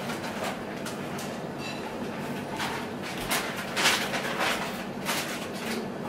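Café room ambience: a steady hiss with scattered clicks, clinks and rustles, the loudest about four seconds in.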